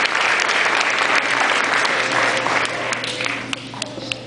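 Audience applauding, the clapping thinning out and fading over the last couple of seconds into a few separate claps.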